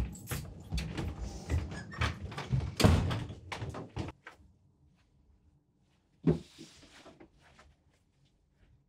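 A door being opened and handled indoors: a run of clicks and knocks from the handle, latch and footsteps for about four seconds, then quiet, then a single thump about six seconds in.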